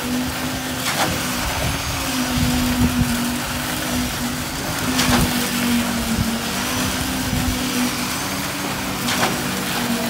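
Concrete pump truck running steadily as it pushes concrete through the delivery hose, a constant engine hum under a rushing noise, with a sharp knock about every four seconds.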